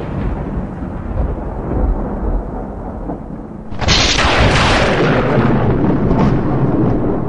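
Rumbling, thunder-like boom sound effect: a long fading rumble, then a fresh sharp crack and rumble about four seconds in that slowly dies away.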